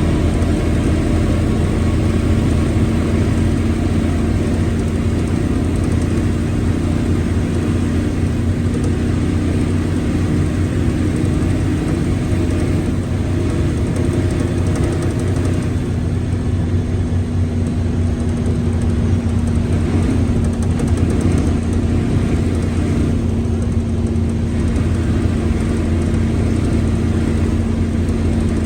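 Mercedes-Benz OF1721L bus's four-cylinder diesel running steadily, with a steady drone and a constant whining tone over it that grows stronger after the middle. The gearbox is growling.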